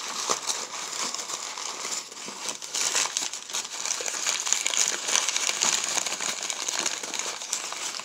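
Crumpled brown packing paper rustling and crinkling continuously as a hand digs through it, with many small crackles.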